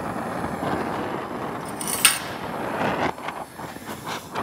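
Oxyacetylene torch with a neutral flame running with a steady rushing hiss while heating a steel banjo fitting for silver soldering. A sharp click sounds about two seconds in, and the hiss drops off about a second later.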